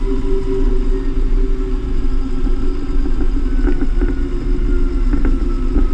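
Claas Axion 850 tractor's six-cylinder diesel engine running steadily while towing a slurry tanker, with a faint high whine and a few light clicks and rattles.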